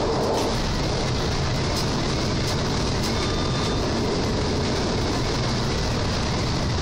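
SWEG NE81 railcar running along the track, heard from inside the driver's cab of its control car: a steady rumble of wheels on rail, with a few faint clicks and a brief faint tone about halfway through.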